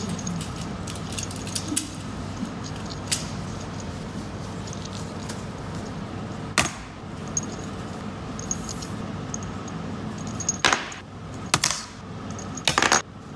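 Revolver metal knuckle roller clicking and clinking as it is walked across the fingers, with a few light ticks early and several sharper clicks in the last few seconds, over a steady low room hum.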